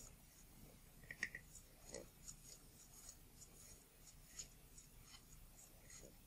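Faint scratchy rubbing and small irregular clicks of a lens pen pushing a scrap of optical cleaning paper around a lens element, wiping away the haze.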